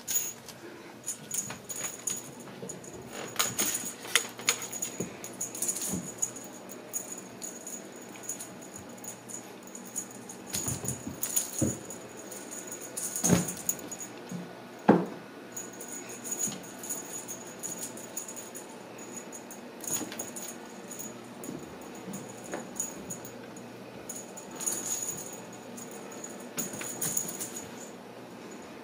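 Ragdoll kittens playing with a wand toy on a hardwood floor and rug: irregular light clicks, taps and rattles, with a few louder knocks.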